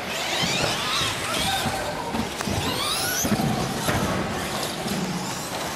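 Radio-controlled off-road race cars running on a track, their motors whining up and down in pitch as they accelerate and brake, with a few sharp knocks from landings and hits.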